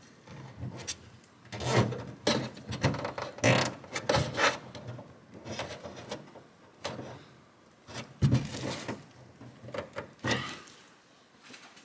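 Small plastic tie wrap being pulled tight around a windshield washer hose, its strap rasping through the ratchet head, in two spells of irregular scraping and clicking amid handling of plastic parts.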